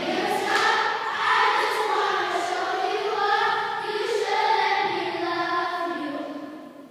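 A choir singing long, held notes in unison, fading out near the end.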